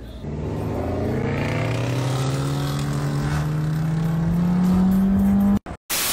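Dodge Challenger engine accelerating in one long pull, its pitch climbing steadily for about five seconds. It cuts off suddenly near the end, and a hiss of TV static begins.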